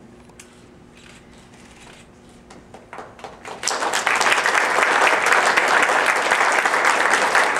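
Audience applause: a few scattered claps about three seconds in, swelling a second later into full, steady clapping.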